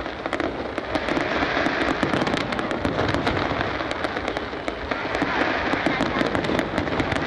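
Aerial fireworks display: shells bursting overhead in a steady run of crackles and pops, with no break.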